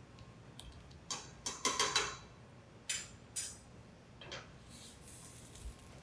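Kitchen utensils and dishes clinking and clattering, a quick run of knocks just after a second in, then a few single knocks.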